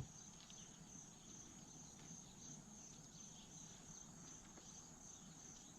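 Faint, steady chirping of crickets, a continuous high trill; otherwise near silence.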